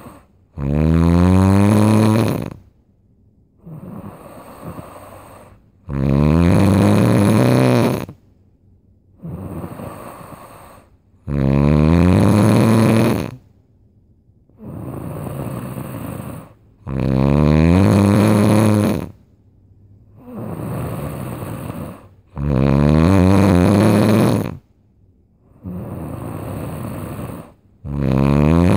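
Loud, rhythmic snoring: a long snore about every five to six seconds, each rising in pitch, with a quieter, rougher breath between them.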